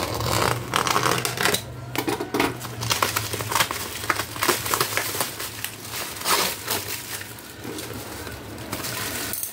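Plastic mailer bag and clear plastic wrap crinkling and tearing as a utility knife slices through them, in a run of irregular short crackles and scrapes.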